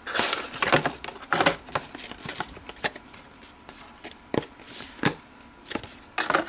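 Product packaging being handled and opened by hand: irregular crinkles, rustles and sharp clicks, busiest in the first two seconds or so, then a few separate clicks.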